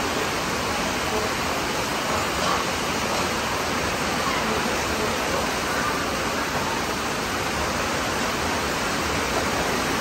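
Heavy tropical rain pouring down steadily, an even rushing hiss with no breaks.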